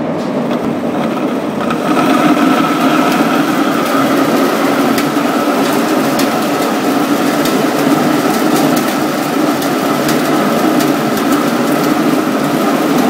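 Dry-type chickpea peeling machine running: a steady motor and blower hum with constant rattling and many small ticks. It gets louder about two seconds in.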